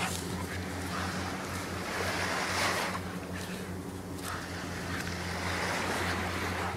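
Beach wind and surf noise, a hiss that swells and fades every couple of seconds, over a steady low hum.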